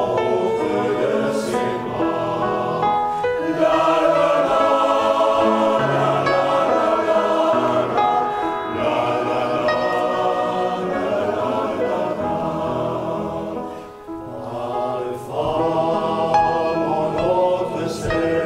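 Men's choir singing a traditional Russian song in several voice parts, with a short break between phrases about three-quarters of the way through.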